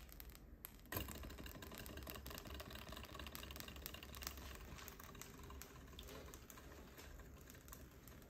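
Small hot-air Stirling engine model running after a flick-start, a faint, fast, even light clicking from its piston and flywheel linkage that sets in about a second in.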